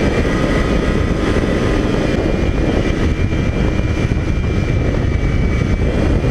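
A 2004 Polaris Pro X 550 snowmobile's two-stroke engine running steadily under way, breathing through an aftermarket Snow Stuff exhaust can, with a thin steady high whine over it.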